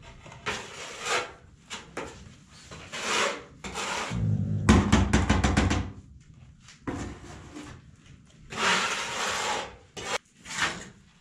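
Ceramic wall tiles being pressed and slid into tile adhesive by gloved hands, making short scraping and rubbing strokes. About four seconds in there is a louder stretch with a quick run of clicks and knocks.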